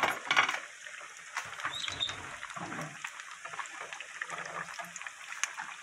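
Breaded potato croquettes deep-frying in a pan of hot oil: a steady sizzle full of small crackling pops, with a louder burst of sizzling right at the start.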